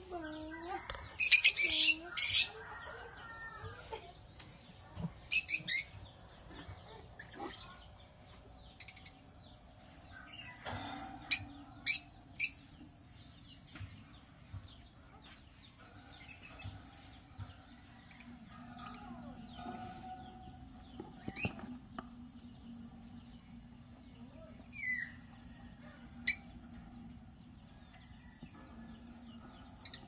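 Lovebirds chirping: shrill, high-pitched calls in short bursts, loudest about a second in, again around five seconds and at eleven to twelve seconds. Single sharp chirps and fainter twitters fall in between.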